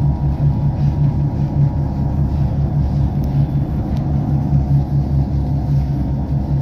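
Tram running along the track, heard from on board: a steady low rumble with a hum that pulses evenly several times a second.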